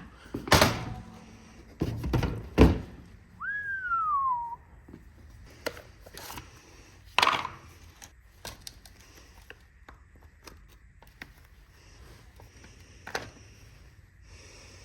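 Knocks and clunks of an old chainsaw and tools being handled and set down on a hard surface, the loudest about two and a half seconds in. Near the middle comes a single short whistled note that rises and then falls.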